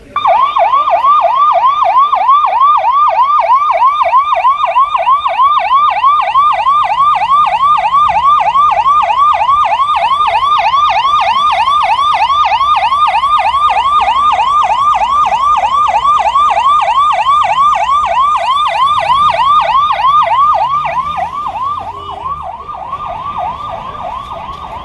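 Emergency vehicle's electronic siren in a fast yelp pattern, about three quick pitch sweeps a second. It starts suddenly and loud and grows fainter near the end.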